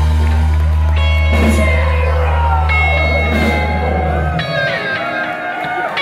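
Live band playing loud amplified music: a held low bass note under guitar that cuts off about four seconds in, with crowd shouts and whoops over it.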